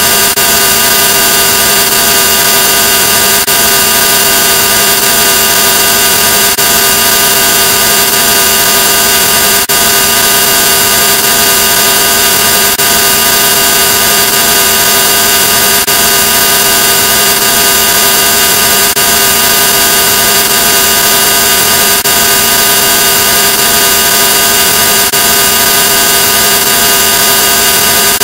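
Loud, harsh, digitally distorted drone made of many steady held tones over a buzzing noise, with a faint click about every three seconds where the audio repeats.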